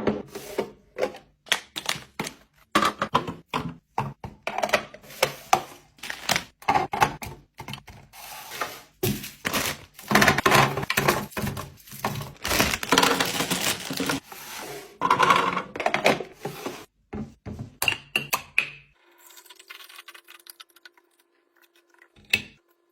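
Groceries and containers being set down and arranged in a refrigerator: a busy run of sharp clicks, taps and thunks, thickening into denser rustling and scraping stretches in the middle. Near the end it goes quiet, leaving a faint steady hum and one last knock.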